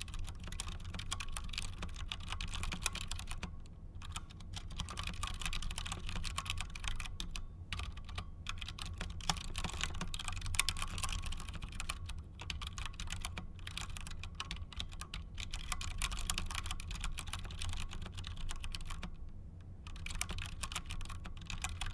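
Continuous fast typing on a V80 tenkeyless mechanical keyboard with Cherry MX Clear switches. These tactile switches have no click, so what is heard is a rapid patter of keystrokes, with brief pauses about 4 s and 8 s in and again near the end.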